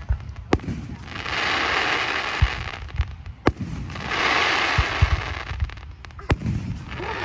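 Fireworks going off: three sharp cracks and several deeper booms, with two long hissing stretches between them.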